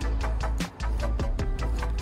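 Background music with a steady fast beat over heavy bass.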